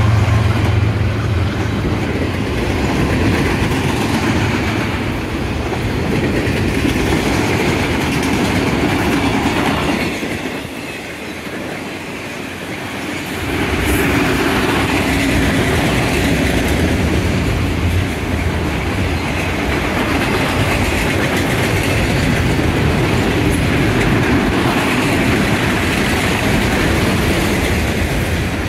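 Freight train of autorack cars rolling past at speed: a steady rumble with the clatter of wheels over rail joints. A diesel locomotive's engine hum fades away in the first second, and the sound drops for a few seconds about a third of the way through before the rumble returns.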